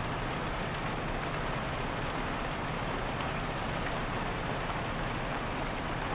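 Steady rain falling, with a few faint drop ticks and a low steady hum beneath.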